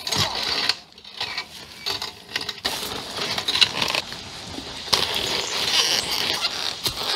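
Irregular rustling, scraping and clinking of brush and gear as someone heaves at a fallen, loaded adventure motorcycle to lift it upright, with a quieter stretch about a second in.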